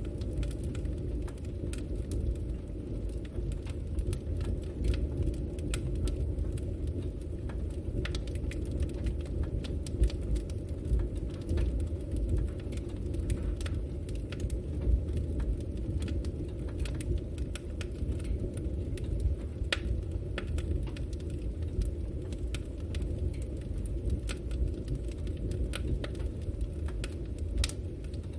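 Campfire crackling: many scattered sharp pops and snaps over a steady low rumble.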